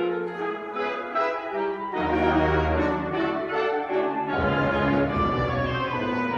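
Honors concert band playing sustained, brass-heavy chords, with low bass notes coming in about two seconds in and the harmony changing again a couple of seconds later.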